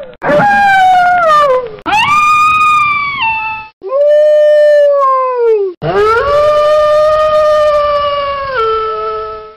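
Wolf howling: four long howls in a row, each sliding in pitch. The first falls away, the middle two rise and then bend down, and the last is held steady for about three seconds before stepping down near the end.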